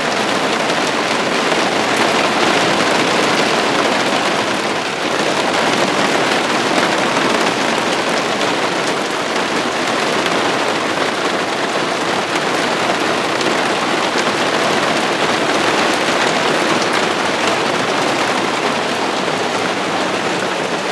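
Heavy thunderstorm downpour: rain pouring down steadily, a dense hiss of drops hitting the ground and nearby surfaces.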